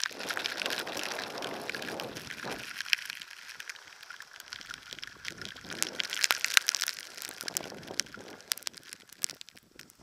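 Blizzard wind gusting over the camera's microphone in swells, with a steady patter of sharp ticks from wind-driven snow striking the camera.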